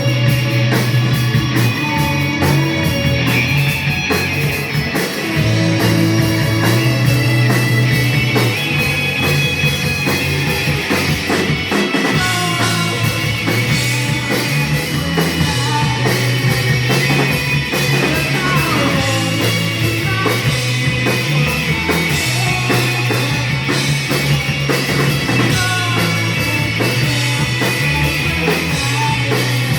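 Rock music with electric guitar, bass and drums playing throughout.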